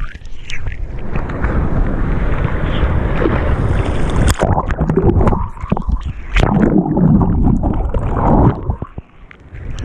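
Water rushing and splashing around a head-mounted GoPro in surf, with wind buffeting the microphone. The sound drops out and goes dull briefly just after the start and again near the end.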